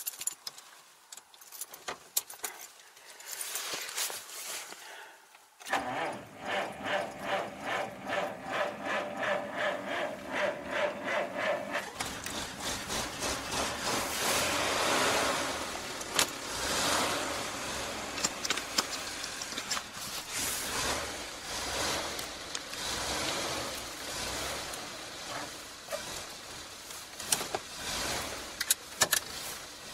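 1940s Dodge engine cranked over by its starter motor with an even, rhythmic churn for about six seconds, then catching about twelve seconds in and running on.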